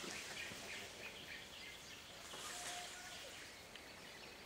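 Faint forest ambience: many small bird chirps and calls scattered over a steady hiss.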